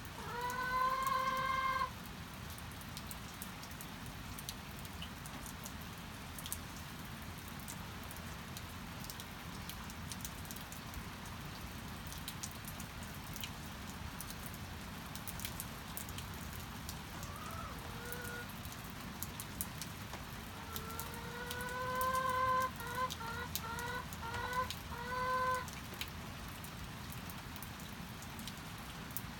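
Steady rain with scattered drips, and chickens calling: a drawn-out call near the start, a short call midway, and near the end a long rising call followed by a string of short clucks.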